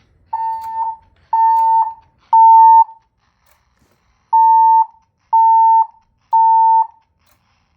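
Siemens Desigo Fire Safety Modular fire alarm sounding its evacuation tone: two rounds of three steady half-second beeps, each round followed by a pause. This is the temporal-3 pattern that signals building evacuation.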